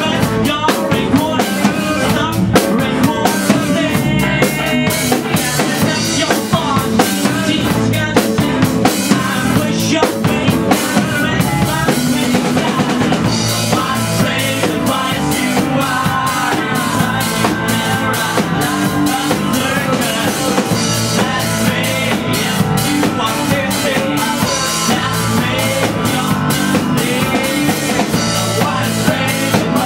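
Live rock band playing, with a steady drum-kit beat under a male singer's vocals and electric guitar.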